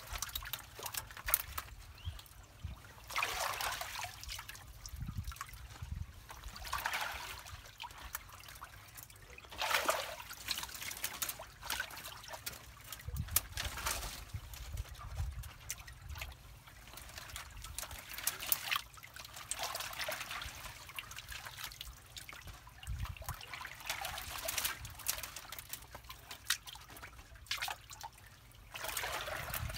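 Muddy water trickling and gurgling through a tangle of branches and litter that blocks a drain, swelling louder and fading back every few seconds.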